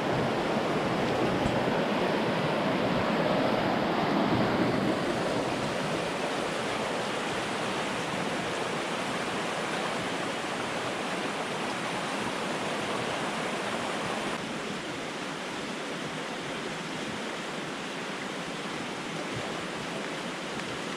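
Fast-flowing creek water rushing, a steady dense roar. It steps down a little in level about five seconds in and again about fourteen seconds in.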